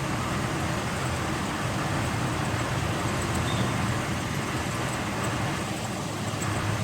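Truck engine idling steadily, a low even hum, on a truck the owner suspects of losing coolant; water is coming from its exhaust pipe, which he takes to be probably not a good sign.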